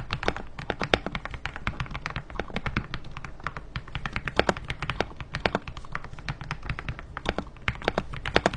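Typing test on a stock Attack Shark X85 Pro gasket-mounted mechanical keyboard: a fast, continuous run of keystroke clacks, several a second.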